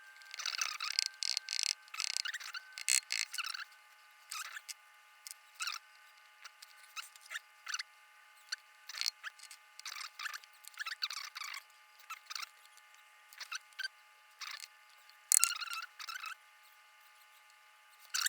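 Small clicks, taps and scrapes of a Mul-T-Lock lock core being taken apart by hand, its pins being pulled out of the cylinder. One sharp click about fifteen seconds in is the loudest.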